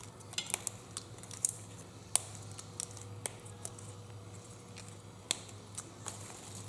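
Scattered light ticks and clinks as a hand lays fresh eucalyptus leaves into a stainless steel pot of water, with a faint steady low hum underneath.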